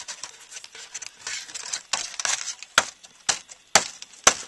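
Hand saw worked against a card: about two seconds of scratchy strokes, then four sharp knocks about half a second apart.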